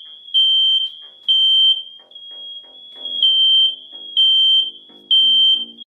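Fire alarm sounding a piercing high tone in the three-beep evacuation pattern: three beeps, a pause, then three more. Plucked music rises underneath, getting louder near the end.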